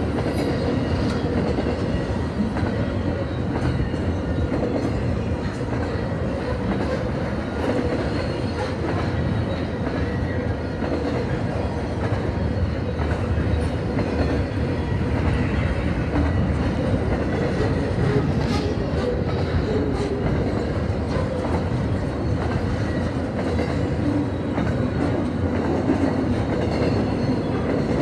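Cars of a long Canadian Pacific double-stack container train rolling by, a steady rumble of steel wheels on the rails with a clickety-clack from the wheels over the rail joints.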